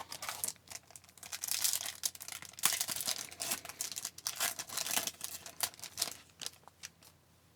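A trading-card pack wrapper being torn open and crinkled by hand, in irregular bursts of crackling and rustling that die away near the end.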